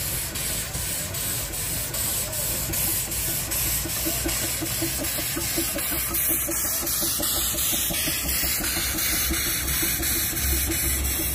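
Small 110-year-old steam locomotive passing close by, steam hissing steadily from around its cylinders. A quick, even rhythmic beat runs underneath from a couple of seconds in.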